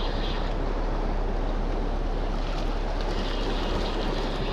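Steady wind noise on the microphone over waves washing against coastal rocks.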